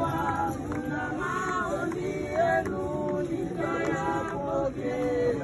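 A group of men and women singing together without instruments, several voices holding and changing notes together.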